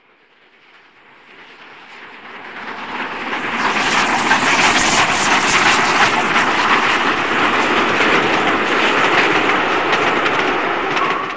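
HO-scale model passenger train rolling past close by: a rushing rattle of wheels on track, full of quick clicks. It swells over the first few seconds, stays loud, then cuts off sharply near the end.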